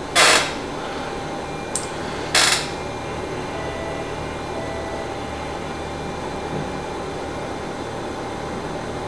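Elisa 300 ventilator running its service-mode flow and over-pressure test with a steady hum and faint steady tones. Near the start there are two short bursts of hiss about two seconds apart, with a faint click between them.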